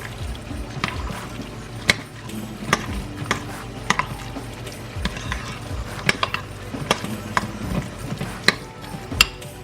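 Spoon mixing the ricotta cheese filling for lasagna in a bowl, with irregular clinks and taps against the bowl.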